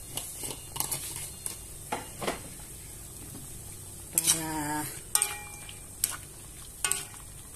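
Metal cooking utensil clinking and scraping against a stainless steel wok while vegetables are stirred, in scattered sharp knocks over a faint steady hiss. A short pitched sound a little past halfway is the loudest moment.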